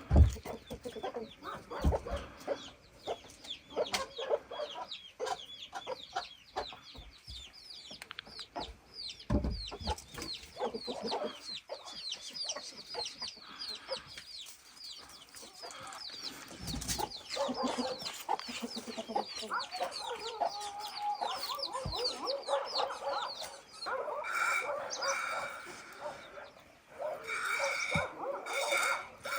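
Chickens clucking, with rapid high chirping through most of the stretch and a few low thumps.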